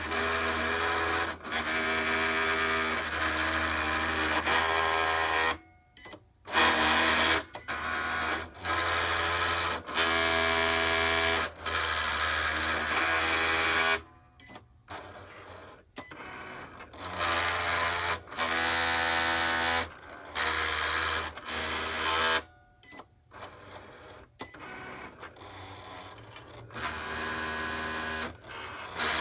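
Cricut cutting machine's motors running in stop-start runs of a few seconds, each a steady pitched whine over a low hum with short pauses between, the pitch shifting from run to run: the machine's grinding noise. The runs are quieter in the second half.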